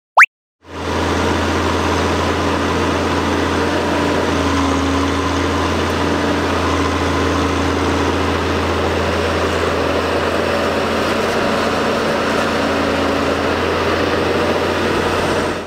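Tracked excavator's diesel engine running steadily with a deep hum. It starts about a second in and cuts off abruptly at the end.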